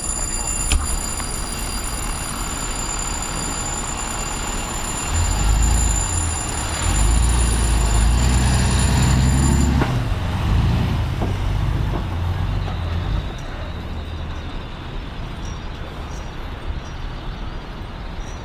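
Fire truck's diesel engine rumbling close by: it swells about five seconds in, stays loud for several seconds, then eases off. A steady high whine stops about ten seconds in.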